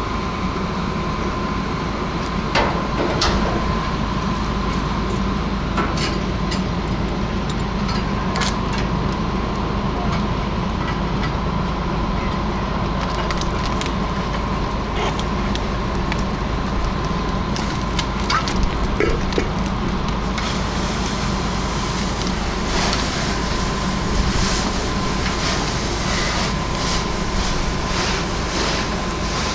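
A fire engine's engine and pump run steadily with a constant whine, under scattered knocks and scraping of tools working through the burnt trash in a steel dumpster. About twenty seconds in, the hiss of a water spray joins.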